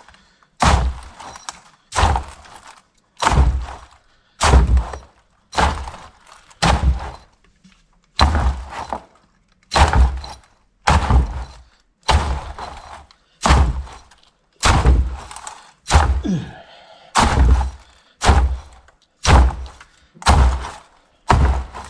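Repeated hammer blows packing loose, thin-stranded number 2 copper wire down into a 55-gallon scrap drum, about one heavy thunk a second, each dying away quickly, to compact the wire.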